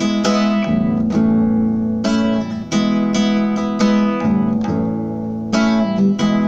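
Classical nylon-string guitar strummed in a steady rhythm, chord strokes following each other with the notes ringing on between them.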